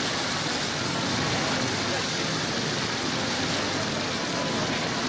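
Steady rushing noise of a storm at sea, wind and churning waves, as a film sound effect.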